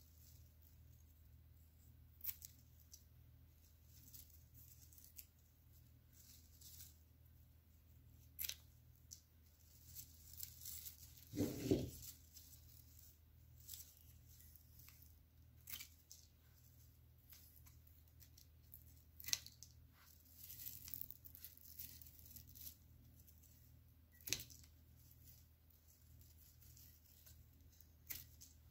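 Faint, scattered snips of scissors cutting papyrus stems, with light rustling of the stems as they are handled, over a low steady hum. A louder bump comes about twelve seconds in.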